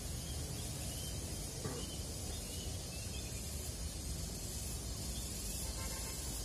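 Steady outdoor background noise: a low rumble with an even high hiss and a few faint chirps.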